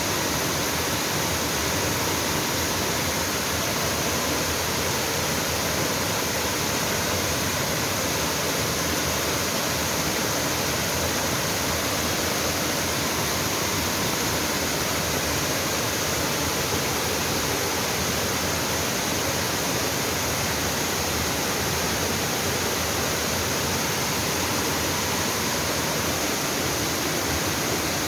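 Waterfall: mountain stream water falling and splashing in a steady, even rush.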